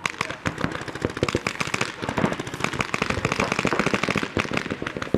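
Paintball markers firing rapidly, many shots overlapping in fast strings of cracks.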